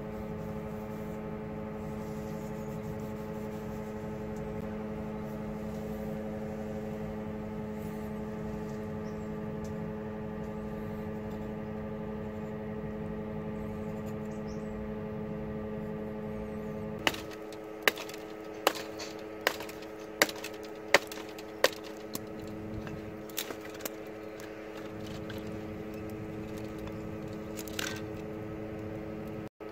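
A clamped Bosch electric drill runs steadily, spinning a sanding pad that a knife blade is held against. About 17 seconds in, the hum gives way to a quick run of sharp wooden cracks, then fainter ones, as kindling sticks are broken and cut with the knife.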